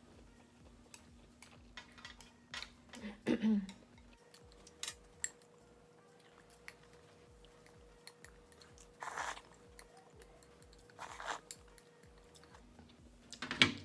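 A person chewing food close to the microphone: many soft mouth clicks, with a few louder bursts about three, nine and eleven seconds in.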